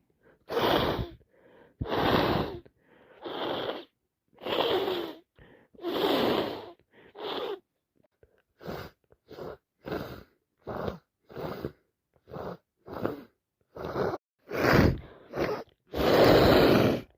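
A person with a heavy head cold making a string of noisy, forceful breaths through a congested nose, about twenty in all. They come slower and louder at first, then quicker and shorter, ending with one long, loud blast.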